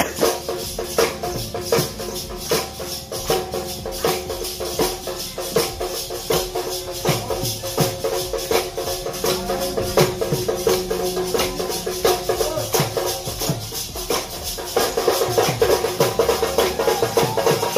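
Music with a fast, steady percussion beat over held tones; it grows louder about fifteen seconds in.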